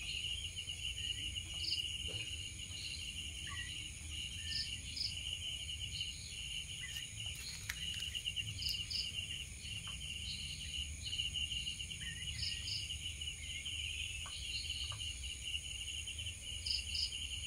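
Night insects trilling: a steady run of rapid cricket-like pulses in trains of about a second, with short paired chirps above and a thin high steady whine. A low steady hum sits underneath.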